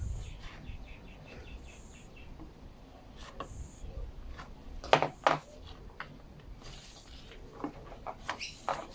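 Quiet clicks and taps of small plastic trimmer parts and fuel line being handled, with a sharper knock about five seconds in and a few more near the end.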